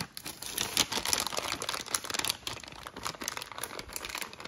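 Plastic bag of shredded mozzarella crinkling in quick, irregular rustles as it is shaken and squeezed to empty the cheese out.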